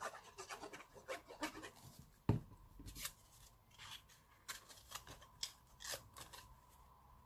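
Faint rustling, sliding and clicking of cardstock pieces being handled and pressed together on a cutting mat, with a single knock about two seconds in as a plastic glue bottle is set down.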